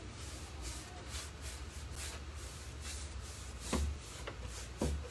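Synthetic paintbrush scrubbing thick chalk paint onto an oak cabinet door in quick, repeated strokes, with two dull thumps near the end.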